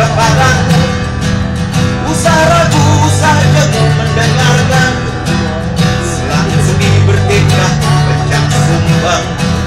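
Acoustic guitar strummed in a steady rhythm, with a harmonica in a neck rack playing a bending melody over it: an instrumental break in a folk song.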